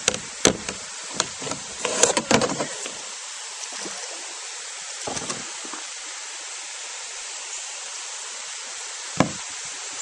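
Steady hiss of rushing water from a small spring-fed waterfall. Sharp knocks fall over it, a cluster in the first three seconds and a single louder one near the end.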